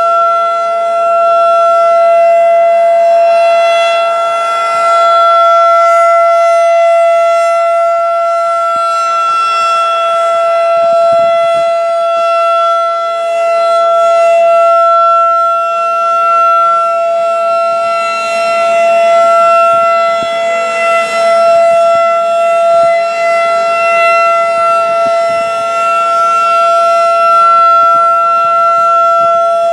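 Federal Signal 2001-DC roundback warning siren sounding a steady tone in a test. Its loudness swells and fades every several seconds as the rotating horn sweeps past.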